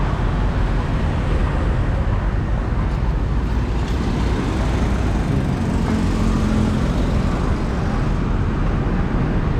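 Street traffic: a steady low rumble of vehicle engines and road noise, with one steady engine hum standing out for about a second and a half in the middle.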